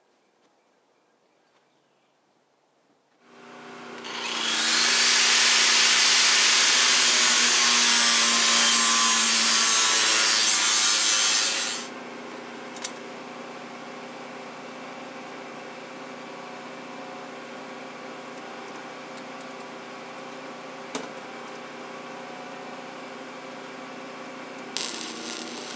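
A power tool spins up about three seconds in and cuts steel loudly for about eight seconds, then stops. A quieter steady hum follows with a couple of clicks, and a short burst of MIG welding comes near the end.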